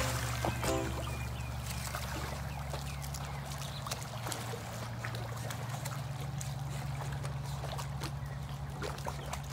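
Pool water splashing and sloshing as a dog paddles alongside a swimming person, over a steady low hum.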